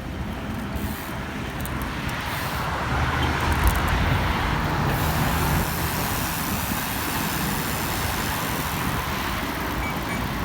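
Road traffic noise: a motor vehicle passes close by, loudest about four seconds in, over a steady rushing road noise.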